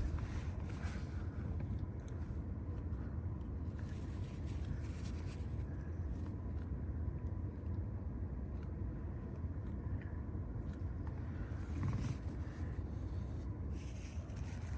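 Steady low rumble of a car, with a faint hiss above it and a few faint clicks.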